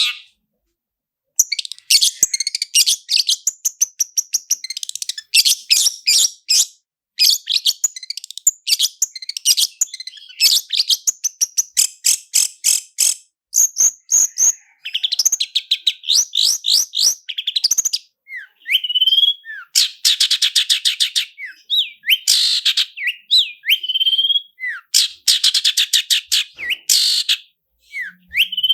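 Long-tailed shrike (cendet) singing a fast, rolling chatter of rapid high notes. In the second half short rising whistles come between the trills.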